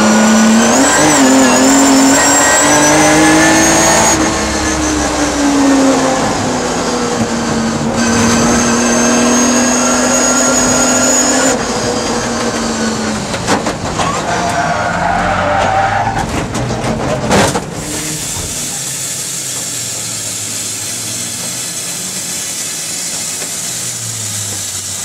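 Triumph TR6 straight-six race engine running hard in the cabin, its pitch rising and falling for about twelve seconds. Then repeated clicking from the brake pedal being pumped after it has gone to the floor, with tyres squealing in a slide, ends in a single hard crash impact about seventeen seconds in. A quieter steady rumble follows.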